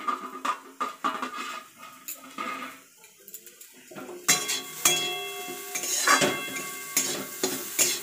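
Metal spatula scraping and knocking against a metal kadai as fried potato and bitter gourd are stirred together, in irregular strokes.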